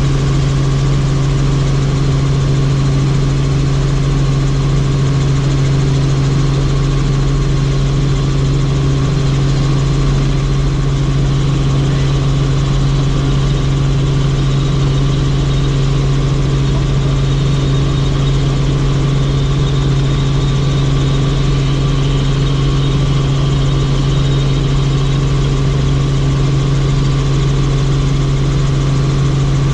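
Helicopter in flight: a loud, steady drone of engine and rotors with a strong low hum that does not change.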